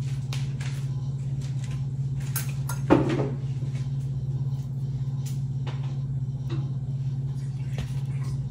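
A steady low electrical hum, with small clicks and rustles of hands putting shredded chicken into tortillas on paper plates, and one sharper knock about three seconds in.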